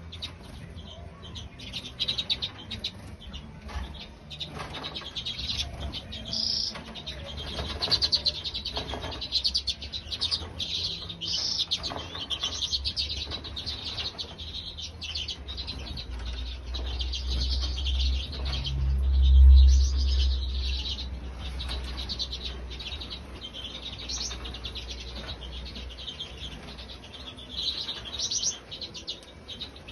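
Many small cage birds chirping and calling at once in a bird room, with a dense, continual high twittering. A low rumble swells and peaks about two-thirds of the way through.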